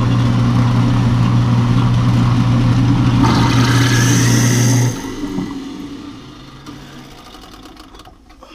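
Newly installed builder-grade garbage disposal running on its test run with water draining through it: a loud, steady motor hum, with extra rushing noise about three seconds in. It is switched off about five seconds in and winds down over the next few seconds.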